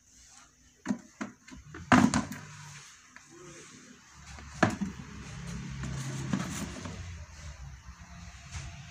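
A few sharp knocks and clatters, the loudest about two seconds in and another just past four and a half seconds, over a low steady hum.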